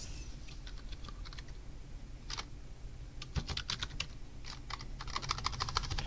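Typing on a computer keyboard: several short runs of keystrokes, the quickest run near the end.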